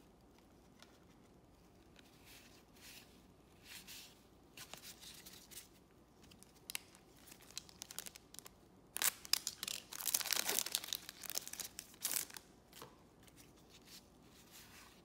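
Trading cards being handled and shuffled, with soft scattered rustles and clicks. About nine seconds in, a plastic card-pack wrapper crinkles and tears for about three seconds, the loudest part.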